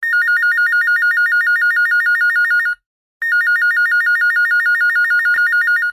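Electronic telephone ringtone: a rapid two-tone trill, sounding in two rings of nearly three seconds each with a short pause between them.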